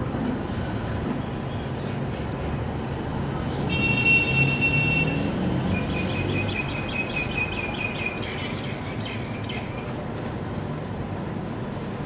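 Steady rumble of road traffic. About four seconds in, a loud high call holds one pitch for about a second and a half, followed by a quick run of short high notes for about two seconds.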